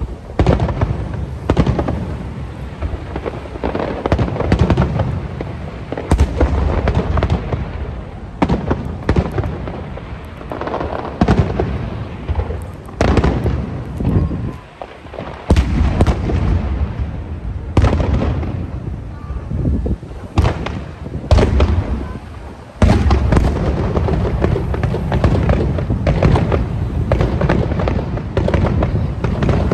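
Aerial fireworks display: repeated loud booms and cracking bursts over a continuous low rumble, with a short lull about halfway through and a dense, unbroken barrage in the last quarter.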